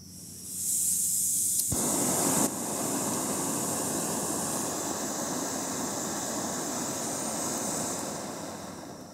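Canister gas backpacking stove: gas hisses from the opened valve, a sharp click sounds, and the burner lights with a steady rush of flame that fades near the end.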